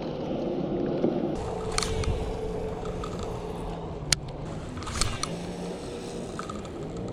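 Spinning fishing reel being cranked on a retrieve, a steady mechanical whir with a few sharp clicks.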